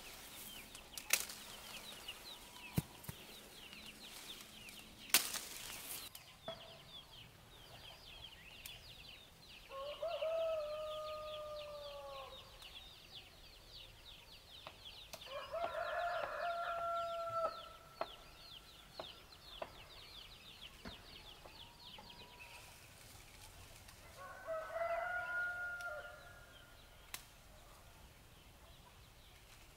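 Rooster crowing three times, each crow about two seconds long, over a fast, high chirring in the background that stops about two-thirds of the way through. A few sharp clicks come early on.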